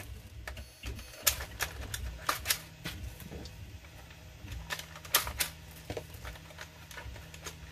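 Sharp, irregularly spaced plastic clicks as foam Nerf Rival rounds are pressed one at a time into the loading port of a Nerf Rival Takedown blaster.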